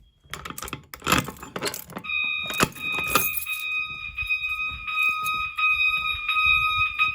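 Fire alarm sounder on a Fire-Lite 9200 system sounding a steady high alarm tone with overtones, part of its interrupted tone pattern. It comes on about two seconds in and cuts off near the end. Before it there is a spell of rattling and clicking.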